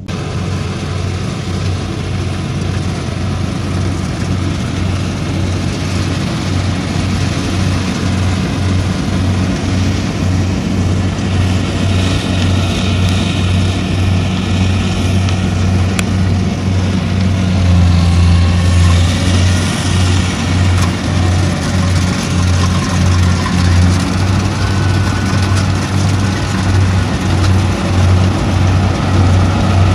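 Rice combine harvester's engine running steadily under load, a low pulsing hum with the hiss and rattle of the cutting and threshing gear over it, getting louder about two-thirds of the way through.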